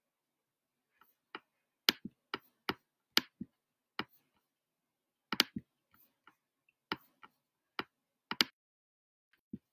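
Sharp, dry clicks and taps close to the microphone, about fifteen of them at uneven spacing, some in quick pairs, with quiet between.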